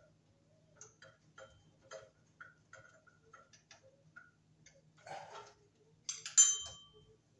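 Light metallic clicks and ticks, two or three a second, from fan blade screws being driven into a ceiling fan by hand. A brief rustle comes about five seconds in, then a louder metal clatter and clink with a short ring just after six seconds.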